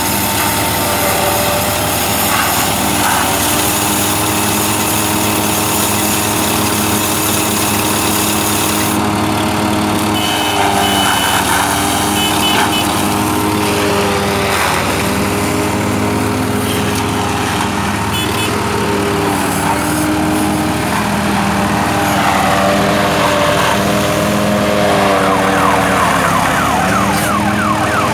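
Tractor-driven silage baler and bale wrapper running: a steady machine noise with several tones that drift up and down in pitch.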